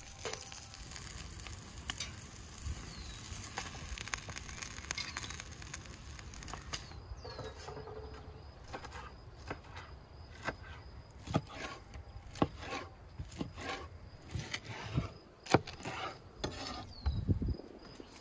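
Food sizzling in cooking for the first seven seconds or so, then a run of irregular sharp clicks and knocks to the end.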